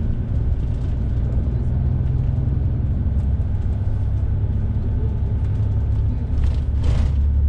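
Bus interior with the engine and road noise as a steady low rumble while the bus drives, with a couple of brief hissy noises near the end.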